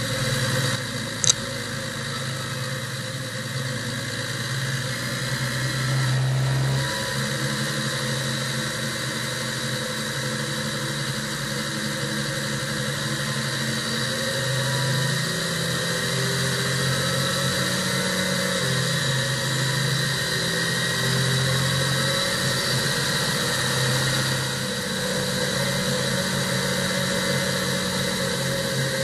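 New Holland tractor engine running steadily as the tractor drives along a road, its note shifting a little with the throttle, under a constant hiss of wind and road noise. A short sharp click sounds about a second in.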